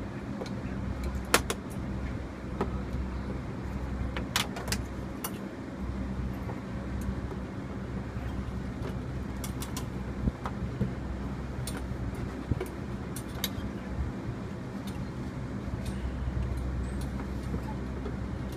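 A truck's diesel engine idling steadily, with scattered sharp metallic clicks and clinks from bungee-cord hooks and the bike's parts as the bicycle is strapped to the back of the cab. The sharpest click comes about a second and a half in.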